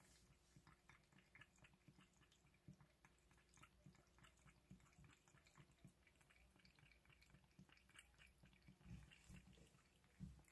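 Faint, quick lapping of a calico cat drinking water from a glass jar: a steady run of small wet ticks, several a second, with a couple of soft low bumps near the end.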